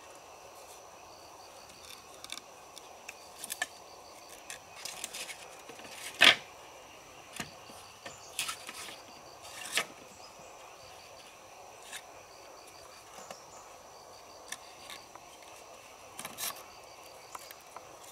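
Hollow bamboo sections knocking and clacking together as they are handled and stacked, a scatter of sharp knocks with the loudest about six seconds in. Insects chirr steadily in the background.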